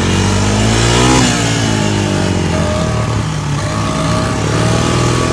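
Small ATV engine revving up under throttle for about a second, then dropping sharply and settling into a steady run.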